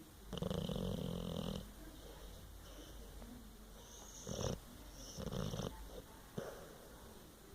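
Dog snoring in its sleep: one long, loud snore about half a second in, then several shorter, fainter snoring breaths.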